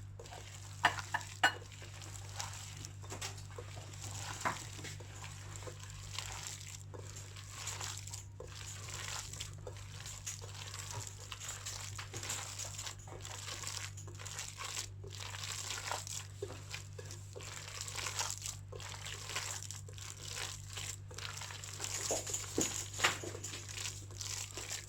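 Raw minced-chicken momo filling with chopped vegetables being mixed in a bowl: soft, irregular wet squishing and rustling strokes, with a couple of sharper knocks about a second in, over a steady low hum.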